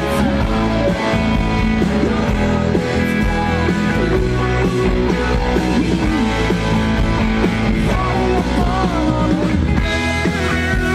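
Rock music with electric guitar and a singing voice, played at a steady, loud level.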